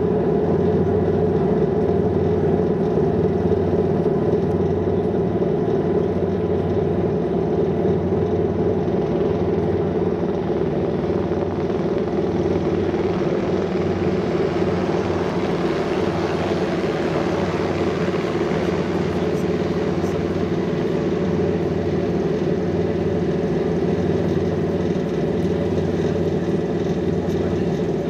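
A boat's engines running with a steady low hum. A helicopter passing overhead adds a broad rushing noise that swells in the middle and fades again.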